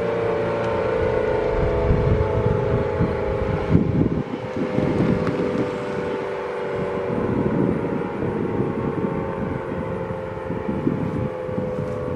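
Federal Signal Model 5-series outdoor warning siren sounding a steady alert tone that slowly grows quieter, with low gusts of wind on the microphone.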